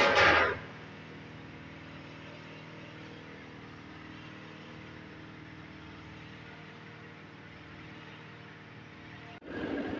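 Mathri frying in a large iron kadhai of hot oil, sizzling steadily over a low, steady hum. A brief loud burst of noise opens it, and about nine seconds in the sound jumps abruptly to a louder, fuller sizzle.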